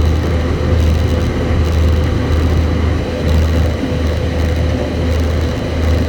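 John Deere 9570 combine running steadily while harvesting soybeans, heard from inside the cab: a deep, even engine drone with a steady higher whine over it.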